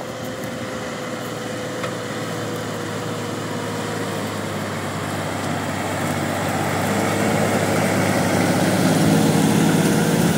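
Massey Ferguson 9563 Smart tractor's diesel engine running steadily under load, pulling a 24-disc harrow through dry soil. It grows louder over the last few seconds as the tractor comes close.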